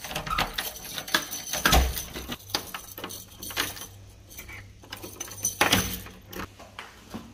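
A door being shut and locked by hand: a metal lever handle and latch clicking and rattling, keys jangling in the lock, with two heavier knocks, one about two seconds in and another near the end.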